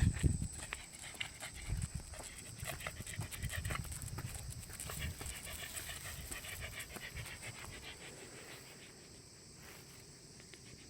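Shetland sheepdog panting in quick, even breaths, fading toward the end, with a brief low rumble near the start.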